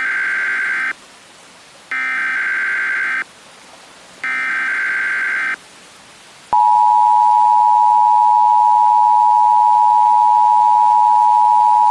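Emergency Alert System header and attention signal. First come three short, buzzy bursts of digital data tones, about a second apart. About halfway through, the steady two-tone EAS attention signal starts and holds. It announces the start of an alert message.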